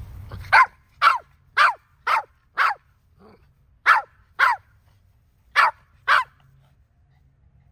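Papillon barking: nine short, high-pitched barks in three runs of five, two and two, each bark dropping in pitch. Demand barking for its tennis ball to be thrown.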